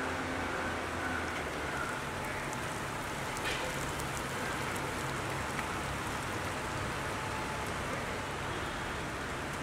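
Steady outdoor hiss with a faint low hum underneath and a short click about three and a half seconds in.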